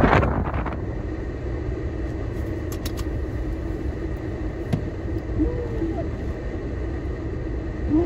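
Blizzard wind blasting the microphone, then suddenly dropping to a steadier low rumble heard from inside a vehicle, with faint wavering whistles of wind around the body.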